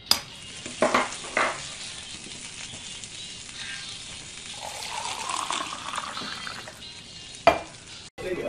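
A sharp clack and two wooden knocks as a seesaw catapult flips an egg into a frying pan, over a steady hiss. Then liquid is poured into a mug, its pitch rising as it fills, and a last knock comes near the end.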